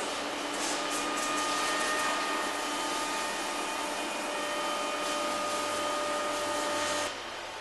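A motor-driven machine running with a steady hiss and a high whine, like a vacuum cleaner, then cutting off sharply about seven seconds in.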